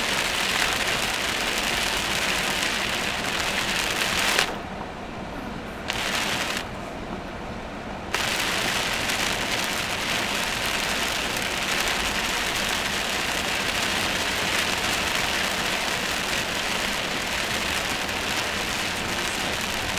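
Heavy rain hitting a car as it drives, a steady hiss. The hiss cuts out abruptly twice, about four and a half and about seven seconds in, for a second or so each time.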